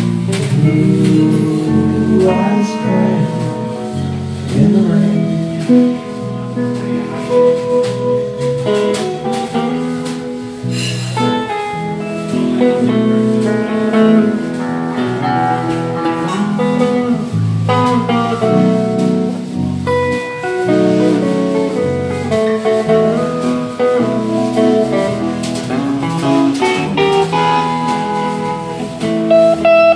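Live band playing an instrumental break of a slow country ballad without vocals: electric guitars carrying the melody over bass guitar and drums.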